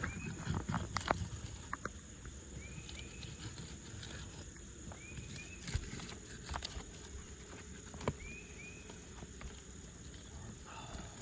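Scattered sharp clicks and knocks of a pry bar working under asphalt shingles to break their seals, with a cluster in the first second, over a low wind rumble. A bird gives a short two-note chirp every two to three seconds.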